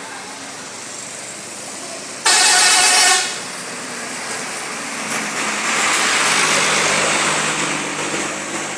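A coach's air horn sounds one loud, steady blast lasting under a second, about two seconds in. Then a bus drives past, its engine and tyre noise swelling and fading.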